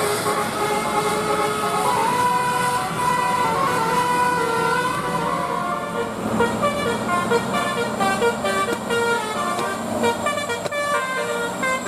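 Basuri telolet bus horn playing a tune: a run of stepped multi-tone horn notes, held longer at first and then quickening into rapid short notes about halfway through.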